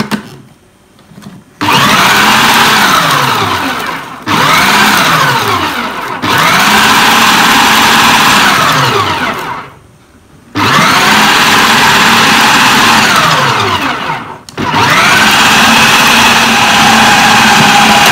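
Idealife IL-222 electric food processor motor chopping beef and seasonings into meatball paste. It runs in about five bursts of a few seconds each, the whine rising in pitch as it spins up and falling as it winds down between bursts.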